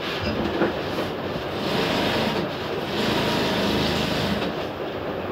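Steady background noise with a soft knock about half a second in.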